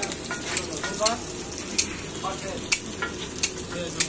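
Chicken, egg and onion sizzling on a flat griddle while being stirred and chopped with two metal spatulas, with sharp clinks of the spatulas striking the griddle about once a second.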